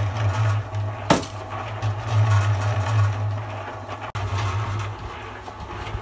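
Mini concrete mixer running with a steady low hum, with one sharp knock about a second in.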